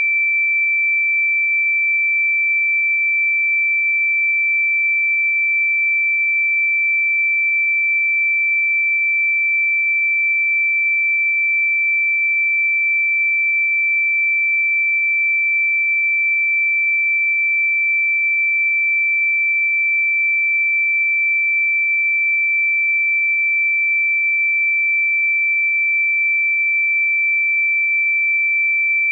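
A single pure electronic sine tone held at one high pitch, steady and unchanging in level, with no other sound. It is a sustained meditation 'healing frequency' tone.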